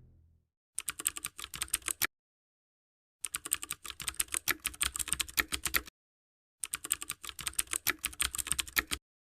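Rapid computer-keyboard typing clicks in three bursts: about a second long, then near three seconds, then about two and a half seconds, with dead silence between them.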